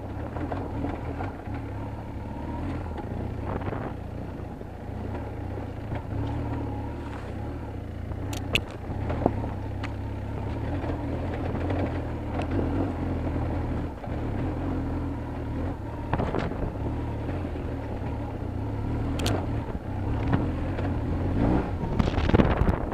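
BMW R1200 GS boxer-twin engine running at low, steady trail speed on a rough dirt track, with a few sharp knocks from the bike over the ground.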